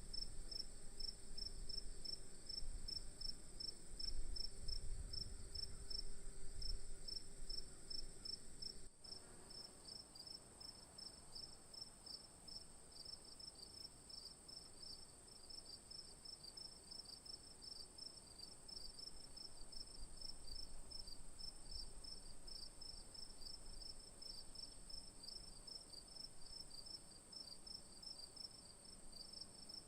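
Crickets chirping: a high, regular pulsing chirp about three times a second over a steady high-pitched trill. There is low rumbling in the first several seconds and a brief dropout about nine seconds in.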